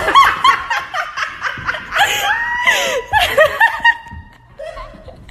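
People laughing hard, high-pitched, in quick repeated bursts, with a long drawn-out high cry about two seconds in.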